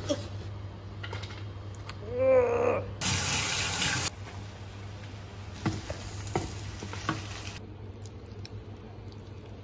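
Kitchen sounds over a low steady hum: a wooden spatula scraping oil around a non-stick frying pan, a brief warbling tone, then a tap running hard onto sliced mushrooms in a mesh strainer for about a second before cutting off suddenly. Light clicks and scrapes follow as avocado is scooped into a bowl.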